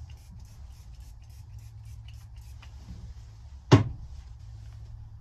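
Microfiber cloth rubbing over a flat-screen TV screen in quick, repeated strokes, several a second, which stop after about two and a half seconds. Near the end comes a single sharp knock, the loudest sound, as something is set down hard. A steady low hum runs underneath.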